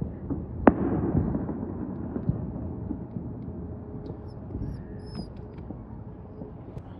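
A firework shell bursting with a single sharp bang about a second in, followed by a rumbling echo and scattered crackles that fade over the next few seconds.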